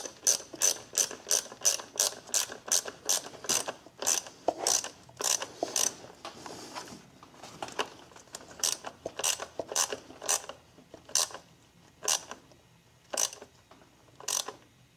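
Hand ratchet with a 1/4-inch socket clicking as it tightens a throttle body hose clamp: quick, even clicks of about four a second, then after a short pause the clicks come further apart as the clamp snugs up.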